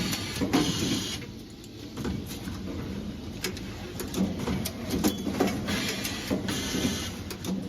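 Automatic wire harness crimping and connector-insertion machine running, with a steady mechanical hum, frequent sharp clicks, and short hissing bursts near the start and again about six seconds in.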